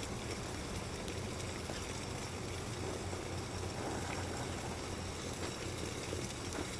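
Steady rushing background noise with a low rumble underneath, no music or speech.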